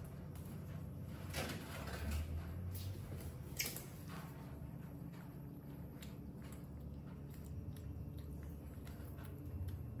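Soft rustles and light knocks from a baby monkey scrambling down a wall onto a tiled floor, with one sharper click about three and a half seconds in, over a low steady room hum; after that only faint small ticks.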